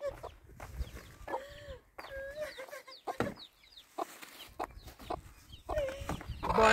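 Chickens clucking: short calls at irregular intervals, growing busier near the end.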